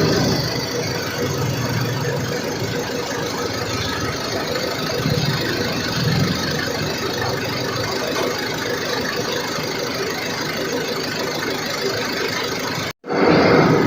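A small motor running steadily with a faint constant whine, cut off abruptly about 13 seconds in.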